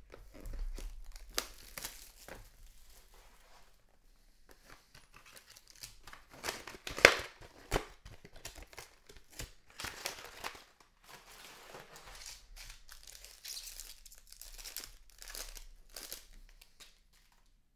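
Baseball card pack wrapper being torn open and crinkled while cards and packaging are handled: irregular rustling and tearing, with one sharp crack about seven seconds in.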